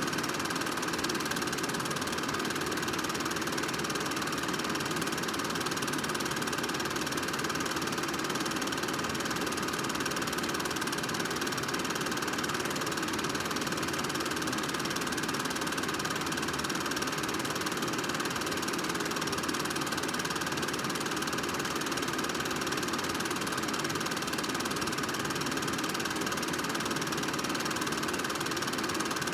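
Film projector running steadily: an even mechanical whirr and clatter from its motor and film transport, with a faint steady hum.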